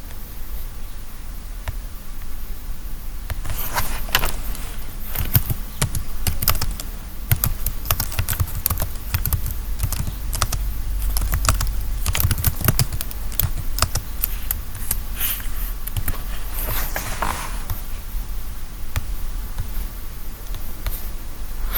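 Typing on a computer keyboard: irregular runs of key clicks starting a few seconds in, over a low steady hum.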